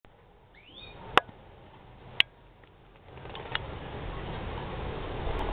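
A faint, short rising chirp from swallows perched on a cable, followed by two sharp clicks about a second apart, which are the loudest sounds. From about halfway a low rushing noise builds up.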